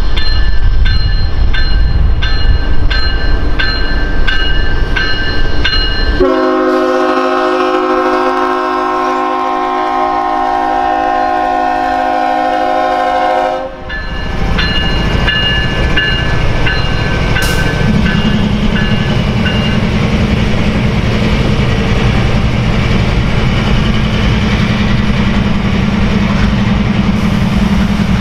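A bell dings steadily, then the lead diesel locomotive, a Kansas City Southern unit, sounds one long chord on its air horn for about seven seconds, cutting off sharply. After that comes the low rumble of the locomotives passing, with the bell dinging again and a steady diesel engine drone.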